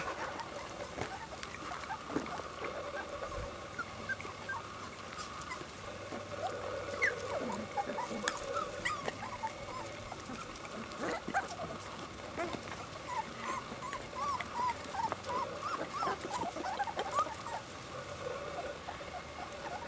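Border Collie puppies whimpering and squeaking as they play, many short high squeaks that come thickest in the second half.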